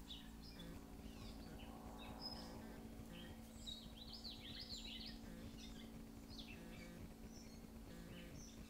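Faint songbirds chirping and whistling from the trees in short, scattered calls, busiest a few seconds in, over a steady low hum.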